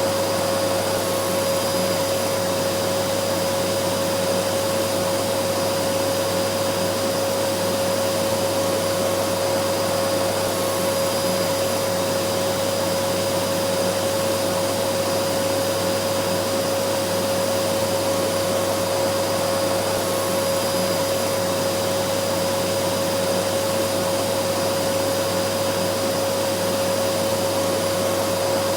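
Vacuum cleaner motor running continuously: a steady rushing hiss with a constant hum, unchanging throughout.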